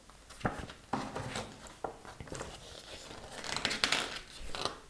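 Paper rustling and crinkling as printed pattern booklets are handled and their pages turned, with scattered short clicks and a denser stretch of rustling about three seconds in.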